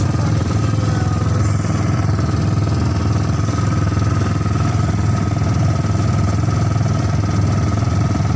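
Small ATV buggy engine running steadily under way, heard from on board.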